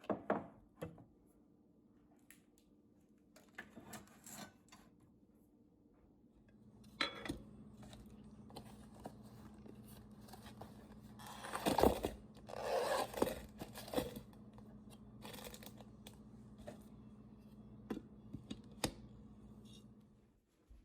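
Packaging being torn open and handled: tearing and crinkling, loudest about halfway through, among scattered clicks and knocks. A steady low hum comes on about seven seconds in and stops near the end.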